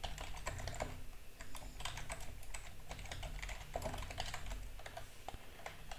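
Computer keyboard typing: quick, irregular runs of keystrokes as a line of code is typed.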